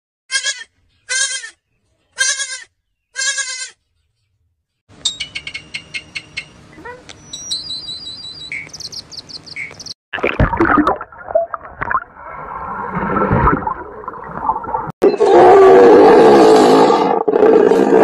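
A goat bleats four times in quick succession. Then comes a stretch of clicks and short whistle-like calls, and then rougher animal calls. A loud, drawn-out hippopotamus roar fills the last few seconds.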